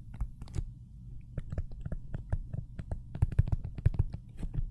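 Stylus tapping and ticking on a tablet screen during handwriting: an irregular run of small sharp clicks over a low steady hum.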